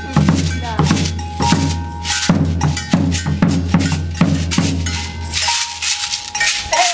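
Large bass drum beaten in a steady rhythm, with a metal hand bell and a shaker played along; the drum drops out for about a second near the end.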